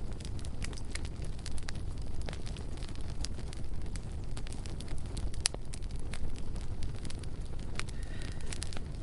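Bonfire burning: a steady low rumble under frequent sharp crackles and pops of burning wood, with one louder pop about halfway through.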